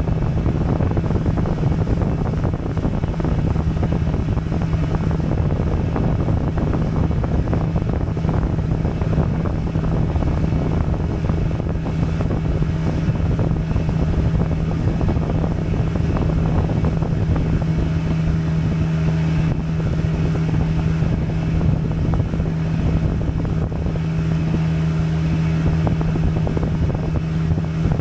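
Motorboat engine running at a steady cruising speed, a constant low hum, with wind buffeting the microphone.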